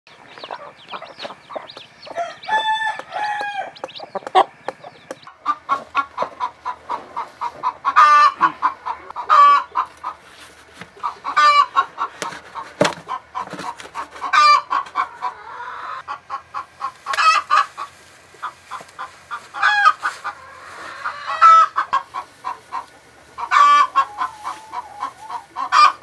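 Chickens clucking in repeated short runs, a call every second or two, with chicks peeping in the first few seconds.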